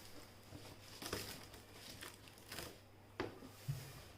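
Cardboard packaging being handled as a soundbar box is opened: faint rustling and crinkling, with a few sharp knocks near the end.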